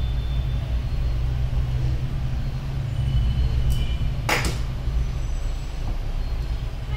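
Steady low mechanical hum, with one short sharp noise about four and a half seconds in.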